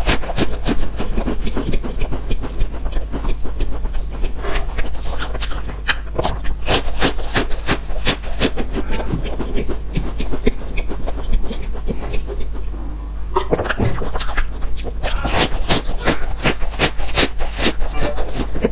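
Close-miked crunching and chewing of crispy coated snack rolls: rapid runs of sharp crackles from bites and chewing. The crackles thin out for a few seconds in the middle, then come thick again.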